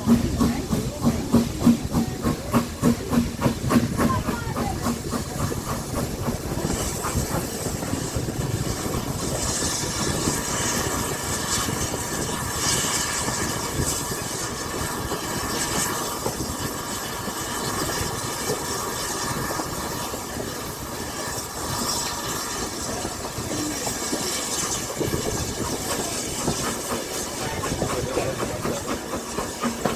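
Steam locomotive running, its exhaust beating in a quick regular rhythm that fades after about four seconds, then a steady hiss of steam with the rattle of the train on the rails.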